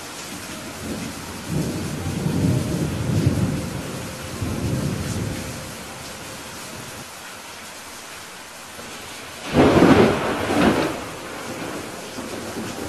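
Steady rain hissing through a thunderstorm. A low roll of thunder rumbles for a few seconds early on, then a close, sharp thunderclap about nine and a half seconds in, the loudest sound, with a second crack right after it.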